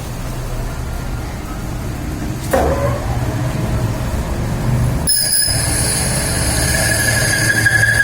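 Lathe machine running with a steady low hum. There is a single knock about two and a half seconds in, and from about five seconds a high, steady whine joins and grows louder toward the end.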